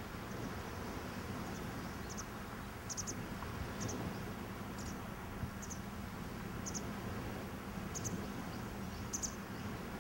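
Outdoor ambience: short, high, insect-like chirps in quick twos and threes, about once a second, over a steady low hum and hiss.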